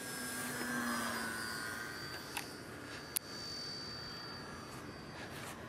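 Electric motor and propeller of a small RC foam airplane whining as it flies past, loudest about a second in with the pitch sliding down as it goes away. A sharp click comes about three seconds in.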